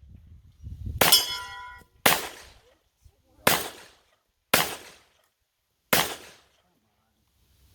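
Five pistol shots about a second apart; the first is followed by a brief metallic ring, the sound of a steel target being hit.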